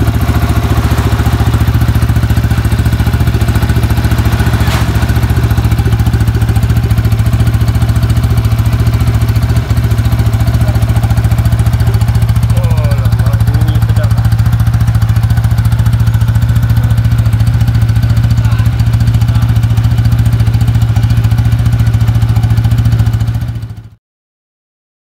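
Modified Yamaha FZ150i single-cylinder engine, fitted with a 63 mm big-bore block, idling steadily with a fast even exhaust pulse. It fades out near the end.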